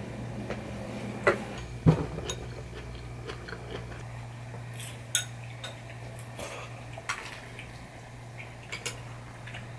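Tableware clinks and knocks: a ladle against a pot and chopsticks tapping a bowl and plate while serving and eating. A handful of separate sharp taps, the loudest about two seconds in, over a steady low hum.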